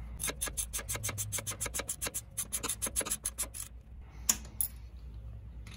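Socket ratchet clicking as a bracket bolt is tightened: a fast, even run of clicks, about eight a second, for three and a half seconds, then a few single clicks.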